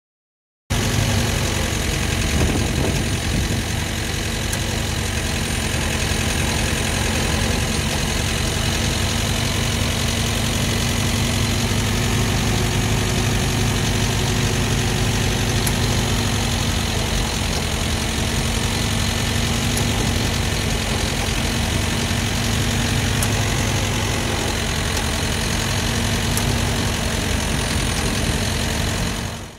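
A Toyota Land Cruiser FJ45's inline-six petrol engine running steadily on a jump start after 25 years standing.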